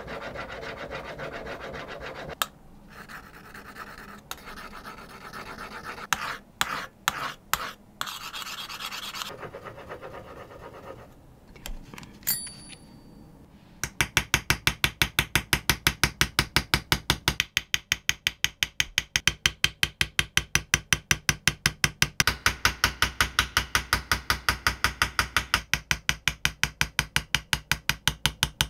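A steel tool scratches across a kitchen knife blade, marking out the design, with a few sharp clicks. About halfway through a small hammer starts tapping a hand engraving chisel into the steel blade, fast and evenly, about five taps a second.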